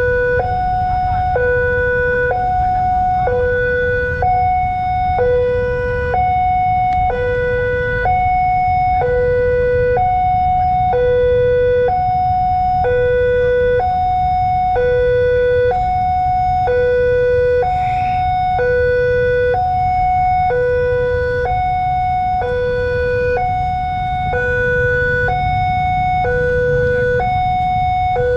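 Railway level-crossing warning siren sounding a steady two-tone hi-lo wail, a lower and a higher tone alternating about once a second, the signal that a train is approaching and the barrier is closed. A low rumble of road traffic runs underneath.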